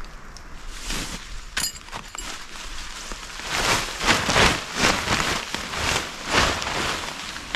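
Rain dripping in the forest, then a tarp being shaken out and flapping, a run of loud fabric swishes starting about three seconds in.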